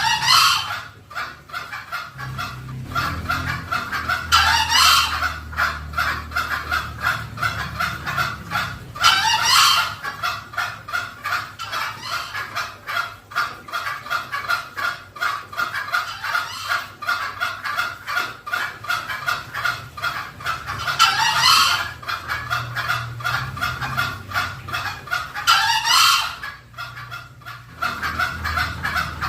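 Green junglefowl calls: five loud, harsh calls that sweep downward, with a long gap in the middle, over a steady run of fast clucking notes. This is a lure call for attracting wild green junglefowl.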